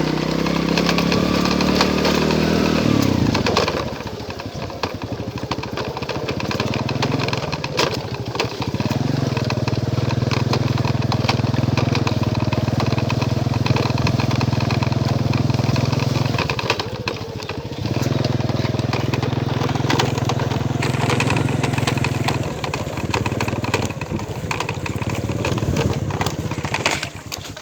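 An engine running steadily, easing off and picking up again a few times.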